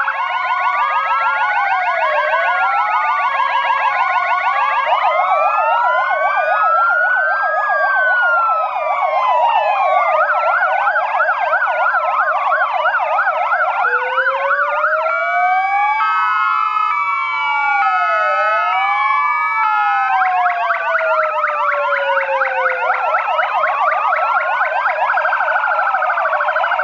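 Sirens of several fire engines and an ambulance sounding together: overlapping slow rising-and-falling wails and fast yelps, joined by a stepped two-tone hi-lo pattern from about 15 to 20 seconds in.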